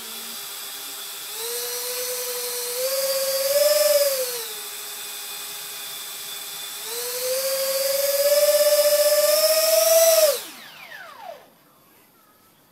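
Twin 40 mm electric ducted fans of a depron RC Boeing 737-500 model running with a high whine, throttled up twice to a higher pitch and back. About ten seconds in they are shut off and spool down in a steeply falling whine to stillness.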